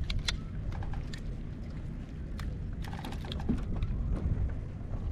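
Low wind rumble on the microphone, with a few scattered light clicks and knocks of gear on a fishing kayak: a cluster right at the start, one a little over two seconds in, and several around three seconds in.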